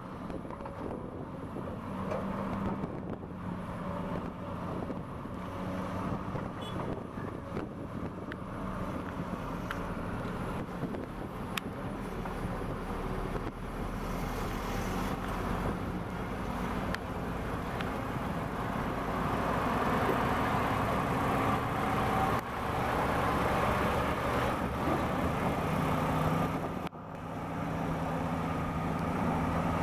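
Diesel engine of a loaded MAN tractor unit pulling a tri-axle tipper semi-trailer, driving off and growing louder as it comes close and passes.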